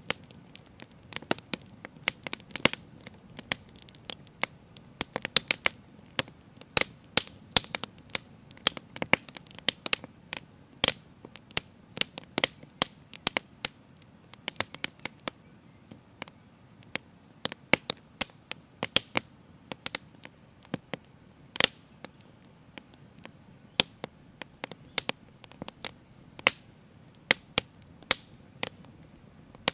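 Open fire crackling steadily, with frequent irregular sharp pops over a faint low hiss.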